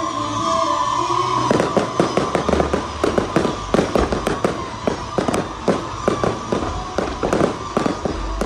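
Fireworks going off in a dense barrage: rapid sharp bangs and crackles, several a second, starting about a second and a half in over a held steady tone.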